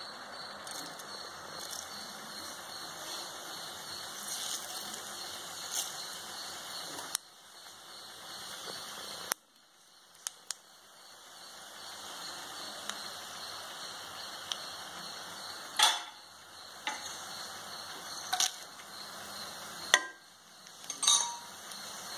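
Hot oil sizzling in a kadai as mustard seeds and cumin fry in it, with a handful of sharp pops and clicks in the last third as seeds splutter and whole spices go in.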